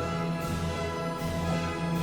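Orchestral background music with sustained notes.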